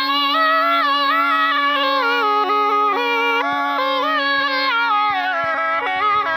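Snake charmer's been (pungi), a gourd-bodied reed pipe, playing a melody that steps and bends up and down over a steady, unbroken drone note.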